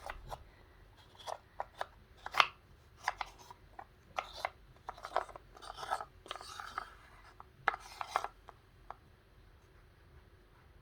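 Wooden puzzle pieces handled on a wooden puzzle board: irregular clacks and short scrapes as pieces are knocked and slid into place, stopping about eight seconds in.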